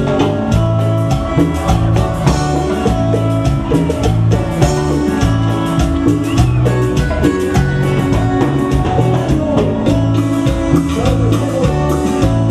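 Live cumbia band playing, with drums, congas and electric guitar over a steady dance beat.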